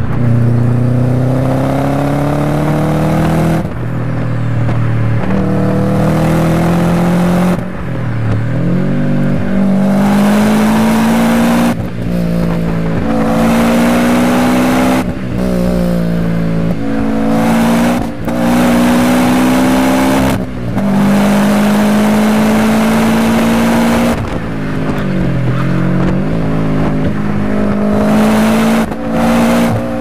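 Car engine and exhaust heard from inside the cabin, accelerating hard through the gears. The engine note climbs steadily in each gear and drops back at every gear change, about a dozen times, with two longer lifts where the revs fall and pick up again, about eight and twenty-five seconds in.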